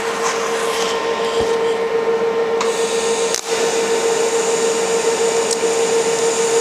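DC TIG welding arc on stainless steel from a Longevity Innovator 255i: the arc is struck about two and a half seconds in and then runs as a steady hiss over a constant hum. The welder finds it running a little hot.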